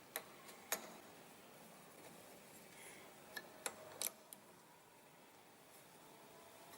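A few short, sharp clicks and knocks, about five in all, twice near the start and three between about three and four seconds in, over a faint steady background hum.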